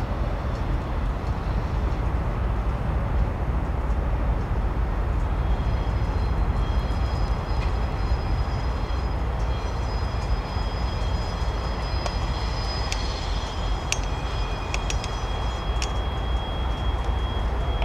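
Diesel freight locomotives crossing a stone arch railroad bridge: a steady low engine rumble, joined about five seconds in by thin high wheel-squeal tones, with several sharp clicks in the second half.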